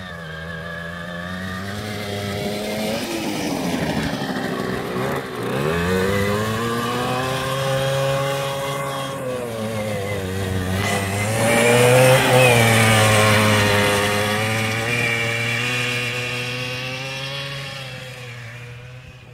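Homemade buggy's small engine revving up and down as it drives over snow. It gets louder as it comes near, loudest about twelve seconds in, then fades as it drives away.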